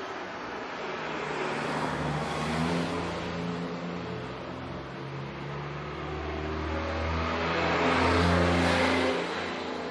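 Motor vehicles passing by, the sound swelling and fading twice: one pass peaks about two and a half seconds in, and a louder one comes near the end.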